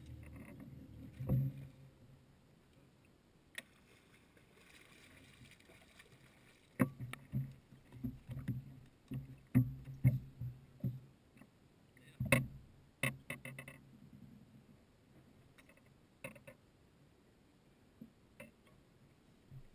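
Thumps and knocks through a bass boat's deck while a bass is fought and landed on rod and line, clustering thickly from about seven to thirteen seconds in. A steady low hum from the bow trolling motor cuts off with a thump about a second in.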